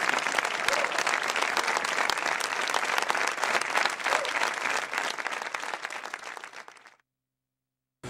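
Audience and performers applauding, a dense crowd of clapping that thins slightly and then cuts off abruptly near the end.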